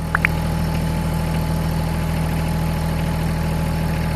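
LS MT225S compact tractor's diesel engine running steadily while its front loader lifts a heavy pallet of concrete bags near the loader's limit. Two brief high squeaks come right at the start.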